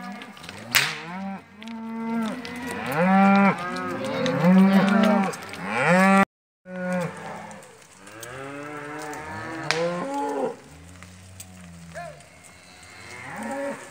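A herd of Hereford-type cows and calves mooing and bawling, many calls overlapping one after another. A sharp crack about a second in, from a rider's whip.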